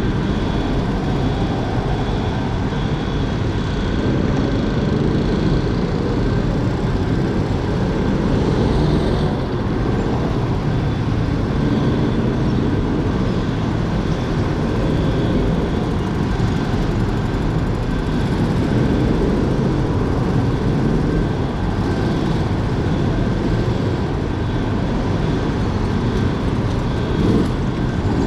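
Go-karts running laps on an indoor track, heard from on board: a steady, continuous drive and tyre noise with other karts close by.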